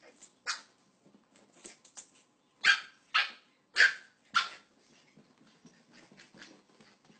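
A puppy barking: one short yap about half a second in, then four sharp, high barks in quick succession around the middle.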